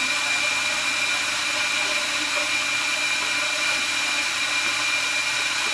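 CNC jewellery machine running with a steady whirring hiss and a thin, steady high whine.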